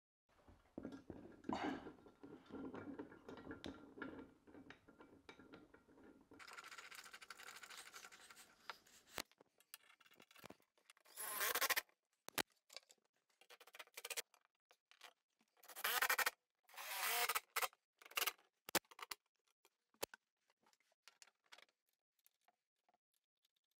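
Faint work noises: a paint roller rolling and rubbing over a wall for the first few seconds, then scraping, clicks and several short bursts of scraping noise as metal barn-door track hardware is handled and fitted.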